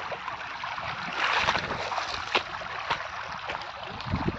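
Muddy floodwater rushing across a paddy field after heavy rain: a steady, splashing rush of flowing water. A few low thumps near the end.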